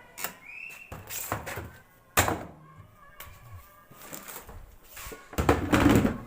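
Scattered knocks and thuds from the plastic body and lid of a semi-automatic washing machine being handled, with a sharp knock about two seconds in and a louder, rougher stretch near the end.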